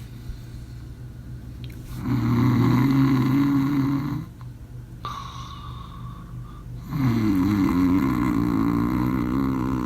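Two long snores, each about two to three seconds, starting about two and seven seconds in, with a wavering, buzzing pitch. A low steady hum sits underneath between them.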